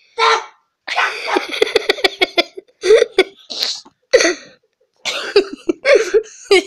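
A boy laughing hard while his feet are tickled: rapid, breathless bursts of laughter broken by short gasping pauses.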